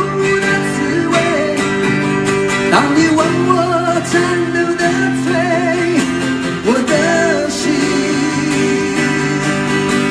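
Live acoustic performance: two acoustic guitars strummed while a man sings, holding long notes with vibrato.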